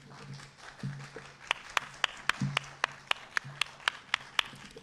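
Audience applauding, building softly at first, then with a few loud individual claps standing out at about four a second.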